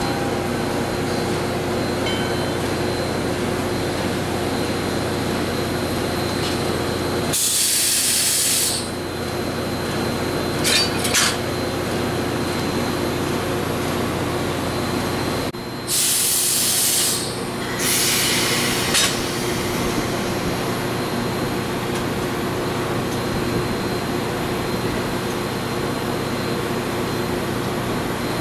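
Valley Railroad 2-8-2 Mikado steam locomotive No. 40 standing with a steady hiss and hum. Loud bursts of hissing come about seven seconds in and twice more around sixteen to nineteen seconds, with a couple of sharp clicks near eleven seconds, as the crewman works at the coupler.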